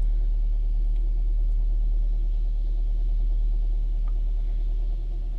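Hyundai Elantra four-cylinder engine running at low rpm under brake torque, in drive with the brake held, with a slight knocking noise from the valve train on the intake cam side, which the technician suspects is a sticking intake CVVT (cam phaser). The engine eases off a little near the end.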